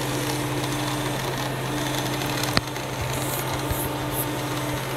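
The small electric motor of an old Mainline OO-gauge N2 tank locomotive model, slightly noisy, humming steadily as it runs slowly, with a single sharp click about halfway through.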